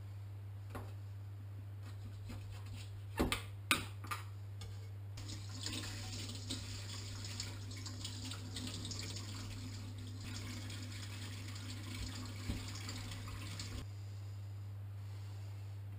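A few sharp knocks, then a kitchen tap runs into a stainless steel sink for about eight seconds while fish is rinsed under it. A steady low hum sits underneath.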